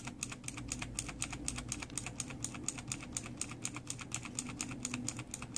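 Steady, rapid typing on a Razer BlackWidow Ultimate mechanical keyboard with clicky Kailh Green switches, about five or six sharp keystroke clicks a second.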